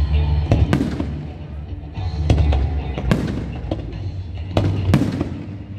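Aerial fireworks exploding: a series of sharp bangs, about eight over a few seconds, some in quick pairs, over a continuous low rumble.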